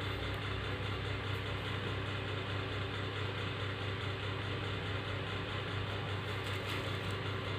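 Steady low mechanical hum with an even hiss behind it, holding level with no change.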